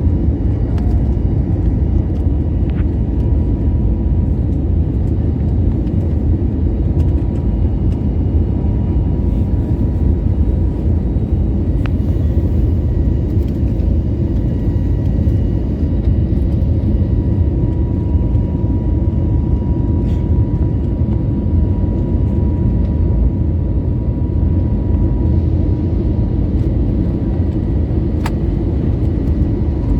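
Airliner cabin noise: a steady deep rumble of engines and airflow, with a thin steady whine running through it.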